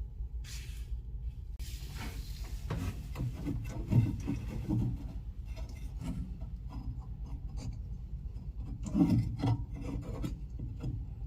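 Scraping and rubbing handling noises from hands working wires and a replacement capacitor into a washing machine, loudest about four seconds in and again around nine seconds, over a steady low hum.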